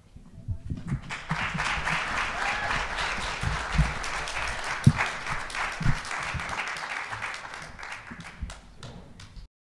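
Audience applauding, with a few low thuds mixed in. The clapping thins out near the end, then cuts off abruptly.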